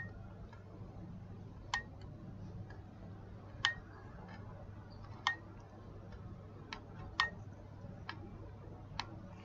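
Dental implant ratchet wrench clicking as it is worked to drive an implant to depth, about seven sharp single clicks spaced unevenly a second or two apart. A low steady hum lies underneath.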